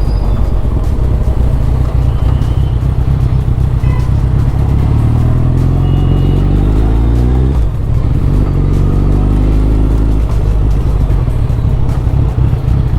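Suzuki Hayabusa's inline-four engine under way, rising in pitch as it accelerates from about five seconds in, a short break near eight seconds as it shifts up a gear, then rising again.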